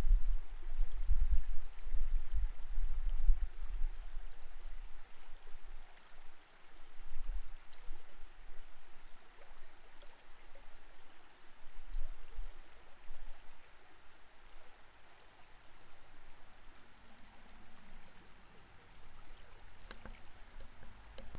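Creek water moving around an underwater camera, heard as a muffled low rumble that surges unevenly under a faint hiss. The rumble is strongest in the first few seconds and weaker through the middle.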